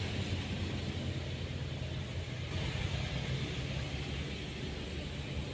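Steady outdoor background noise: a low rumble with a hiss above it and no distinct events.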